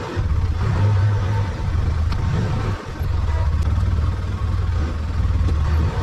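Engine of an Arctic Cat side-by-side UTV running with a steady low drone, dipping briefly about three seconds in.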